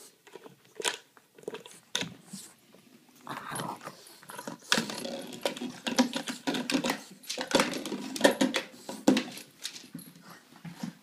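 French bulldog working at a plastic peanut butter jar with its mouth and paws, knocking and pushing it over a wooden floor: a run of irregular clicks and knocks, mixed with the dog's snuffling, busiest in the middle of the stretch.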